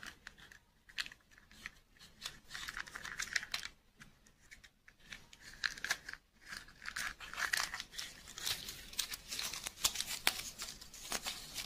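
Small plastic clicks and taps as a plastic surprise-egg toy capsule is handled and opened, then dense paper crinkling and rustling in the second half as its folded paper leaflet is unfolded.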